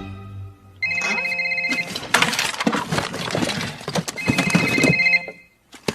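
A phone ringing with a trilling ring, two rings of about a second each a few seconds apart, with knocks and rustling between them.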